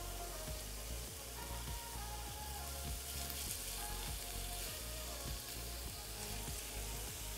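Thin strips of sirloin steak sizzling steadily in very hot avocado oil in an enameled cast-iron skillet set on high, with light clicks of metal tongs against the pan as the strips are arranged.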